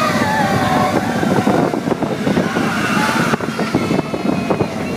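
Expedition Everest roller coaster train running along its track, its wheels making a dense, continuous rattle, with wind rushing over the microphone.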